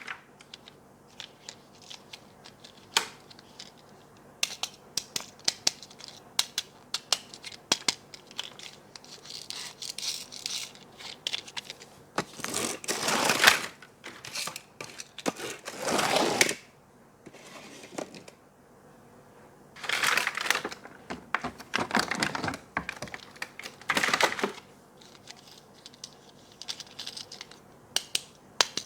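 Toy packaging being handled and opened by hand: many scattered clicks and taps of plastic and cardboard, with several longer bursts of crinkling around the middle and again about two-thirds of the way through.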